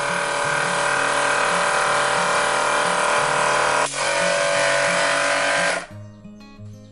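12V air compressor running loud as it pumps its tank up to 8 kg, then switched off by hand about six seconds in, its motor stopping abruptly. Quiet background music with a steady beat runs underneath and carries on after.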